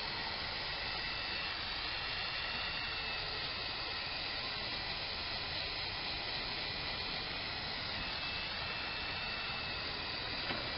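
Steady hiss of background noise with faint high tones, and a small click near the end.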